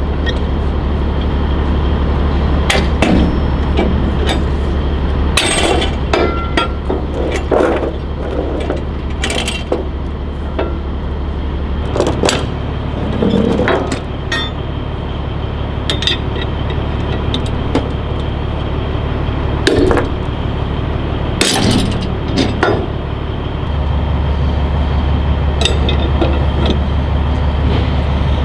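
Steel tie-down chains and binders clanking and clinking in irregular sharp strikes while a load is chained down, over a steady low engine idle.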